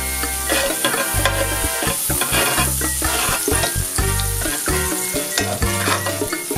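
Red onions sizzling in melted vegan butter in a cast-iron skillet, stirred and scraped with a slotted spatula, over background music with a deep, pulsing bass line.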